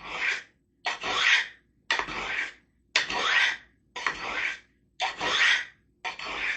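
A steel knife blade drawn along the ceramic rods of a triangular sharpener, seven rasping strokes about one a second. They put the 40-degree secondary bevel on the edge.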